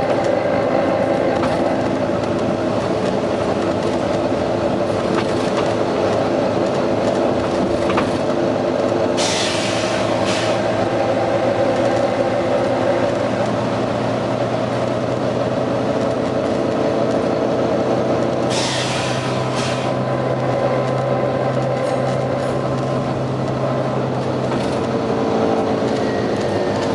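Volvo B9TL double-decker bus's six-cylinder diesel engine running steadily, with two sharp hisses of compressed air about ten seconds apart.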